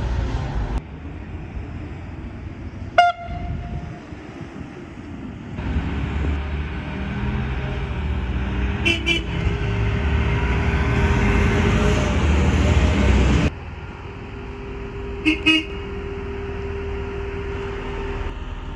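A DSB IC4 train's air horn gives one short toot about three seconds in. Then, over the rumble of a passing train, a DSB IC3's electric horn gives a quick double beep. A second quick double beep from an electric horn follows about fifteen seconds in.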